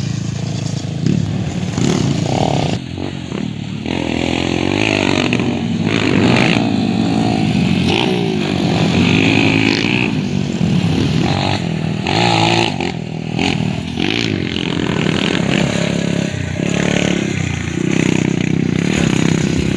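Dirt bike engines revving and riding past one after another, the engine pitch rising and falling as each bike accelerates and goes by.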